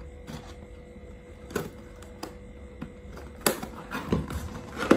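Gift packaging being handled and unpacked from a cardboard box: scattered light rustles, taps and clicks, the sharpest about three and a half seconds in and again near the end.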